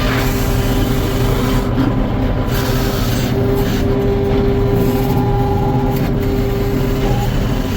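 Sawmill running steadily: a continuous machine hum with a held tone above it.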